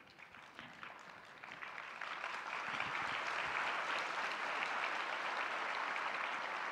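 Audience applauding: a few scattered claps at first, building over about two seconds into steady applause.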